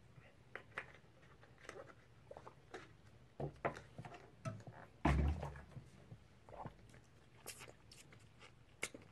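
Handling noise: scattered light clicks and knocks, with one heavier thump about five seconds in.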